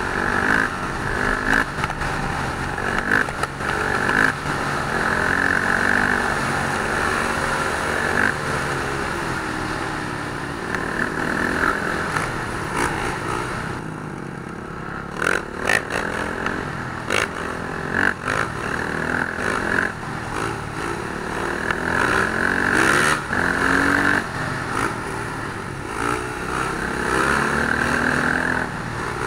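Motorcycle engines revving and riding, their pitch rising and falling again and again, with a few sharp clacks about halfway through.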